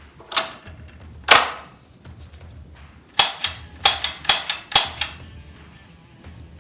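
4.5 mm (.177) CO2 air rifle shooting: two single sharp cracks about a second apart, then a quick string of about eight cracks near the middle. Background music with a low steady beat runs underneath.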